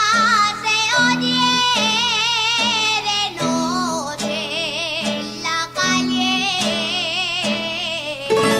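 A woman singing an Aragonese jota, holding long high notes with a wide vibrato in phrases, over plucked string accompaniment with a regular bass figure.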